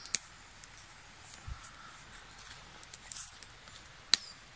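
Faint rustling and scattered small clicks of hands stripping bark from a de-thorned thorn-bush stem to make cordage, with one sharp click near the end.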